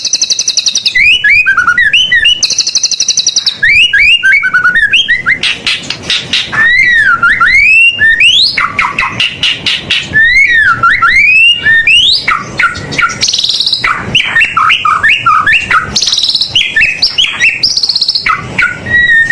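White-rumped shama singing a loud, fast-changing song packed with mimicked calls of other birds. Swooping whistles and quick chains of short notes alternate with high buzzy rattles.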